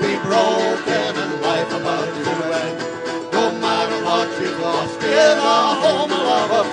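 Live folk band playing acoustic guitars in a steady strummed rhythm, mid-song.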